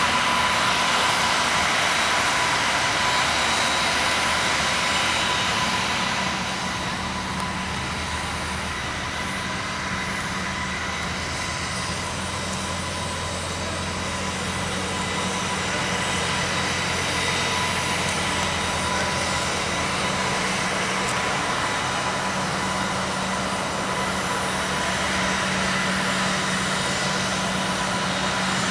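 Airbus A320-family airliner jet engines running steadily on the ground: a high whine over a broad rush, dipping a little about six seconds in and building again later.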